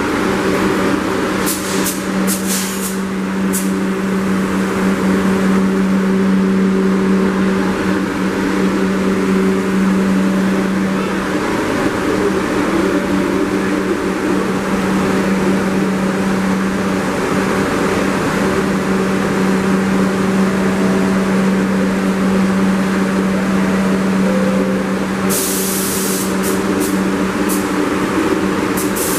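New York City Subway R62A train standing at the platform, its on-board air conditioning and auxiliary equipment running with a steady low hum. Short sharp high-pitched sounds come in clusters about a second in and again near the end.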